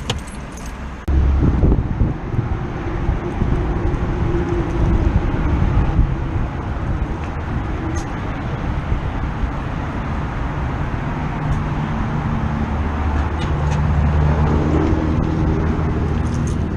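Small car's engine running while the car moves, a low rumble whose pitch shifts with engine speed, over road noise; the sound grows abruptly louder about a second in.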